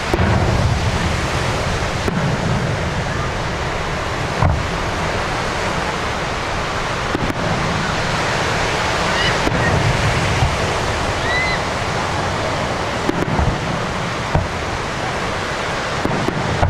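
Fireworks show heard from a distance: a few dull booms of shell bursts under a steady rushing noise, with a couple of faint short rising whistles.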